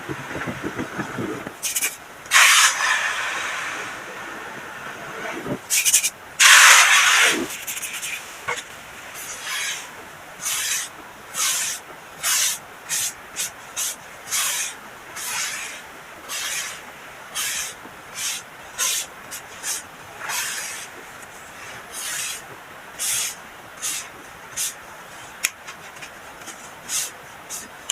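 Soft crunching of baking soda being crushed: a few longer, louder crushes in the first several seconds, then a steady run of short, quick crunches at a bit more than one a second.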